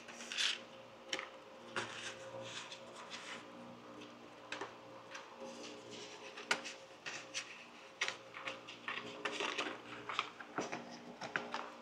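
Metal forceps clicking and scraping as they pull motor wiring forward through a foam fuselage: a run of small, irregular clicks and rubs.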